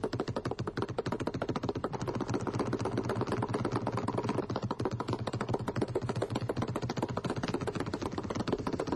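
Basketball dribbled rapidly and steadily on a hardwood floor, a fast, even run of bounces.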